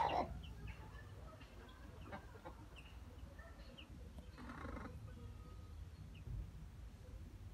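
Baby chicks peeping: scattered short, high cheeps every second or so, with a louder, lower call about four and a half seconds in. A low rumble runs underneath.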